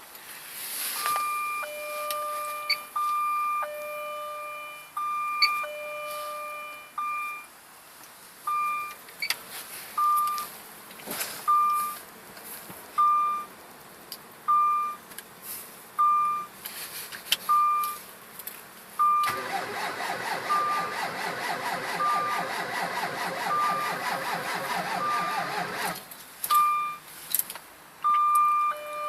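Jaguar S-Type 3.0 V6 cranking on its starter for about seven seconds in deep cold without catching, a hard start that the owner puts down to fuel injectors needing cleaning. Before and after the cranking, the car's warning chime beeps steadily, about once a second.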